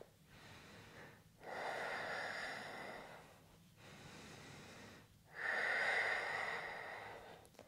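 A woman breathing slowly and deeply, close to the microphone, while holding a yoga pose. There are two breath cycles, each a short, quieter breath followed by a longer, louder one of about two seconds.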